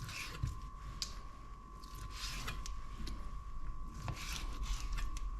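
Kitchen prep handling: light knife-on-chopping-board clicks and scrapes with a few soft rustles, over a faint steady high-pitched hum.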